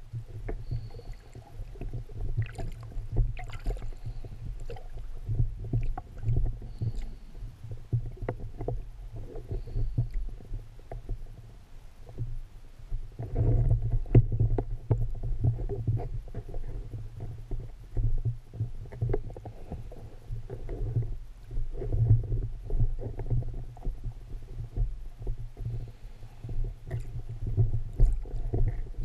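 Muffled low rumbling with scattered faint clicks and knocks, as heard by a camera filming underwater: water moving against the housing and handling noise. The rumble swells louder every few seconds.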